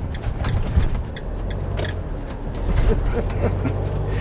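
Motorhome engine running at low speed, heard from inside the cab, with frequent clicks and rattles from the cab fittings as it rolls slowly over the lane.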